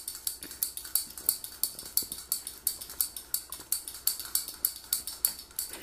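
Plastic Mardi Gras beads and a shot glass hanging from them clicking and clinking as they are jiggled and swatted at by a cat: a rapid run of light clicks, about four or five a second.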